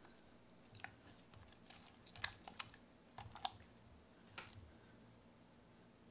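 Fluffy slime coloured with cocoa powder being pushed and squished by hand, giving faint sticky clicks and small pops that come in clusters about two and three and a half seconds in.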